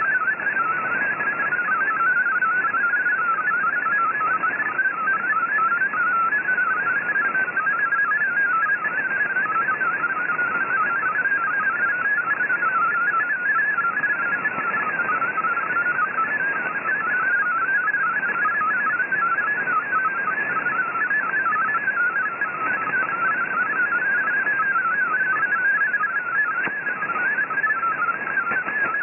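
MFSK32 digital text transmission heard through a shortwave receiver: a fast, warbling run of single tones hopping around 1.5 kHz. Steady static hiss lies under it.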